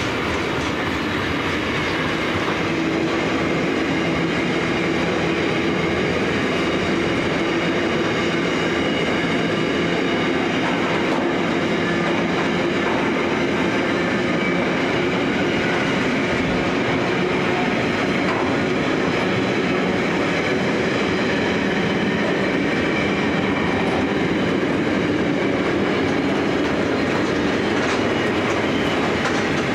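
A long freight train of louvred boxcars and container flat wagons rolling past at speed: a steady, even rumble of steel wheels on rail, with some thin, steady whining tones above it.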